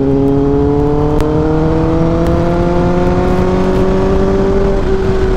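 Kawasaki ZX10R's inline-four engine pulling at highway speed, its pitch rising slowly and evenly as the bike gains speed and levelling off near the end, over a low wind and road rumble.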